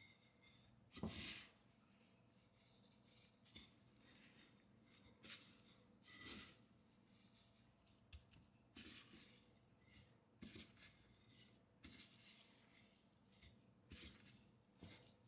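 Faint rustling and scratching of dry breadcrumbs as a gloved hand presses and rubs a chicken breast into them to coat it, in short irregular bursts, the loudest about a second in.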